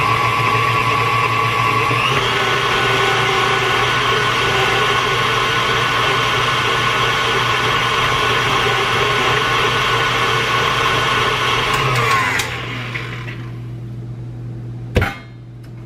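Electric mixer beating eggs into cookie batter, its motor whine stepping up to a higher speed about two seconds in, then winding down and stopping near the end. A single sharp knock follows.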